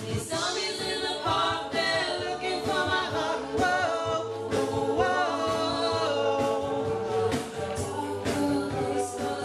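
A cappella vocal group singing a pop song in layered harmony: several voices holding and moving chords over a sung bass line, with a steady percussive beat.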